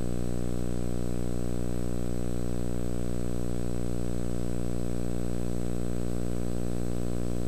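A steady electrical hum with many overtones, unchanging in pitch and level.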